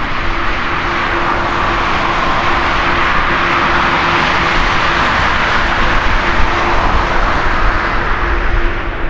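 Boeing 787 Dreamliner's GEnx-1B turbofan engines climbing out after takeoff: a loud, steady jet roar that swells slightly mid-way, with a steady low tone running through it.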